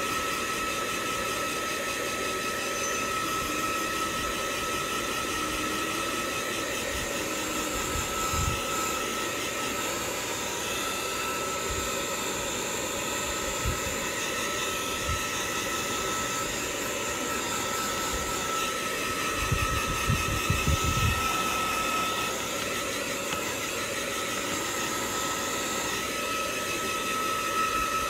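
Handheld hair dryer running steadily: a continuous blowing hiss with a high, steady motor whine. A few low thumps sound partway through, with a cluster of them about two-thirds of the way in.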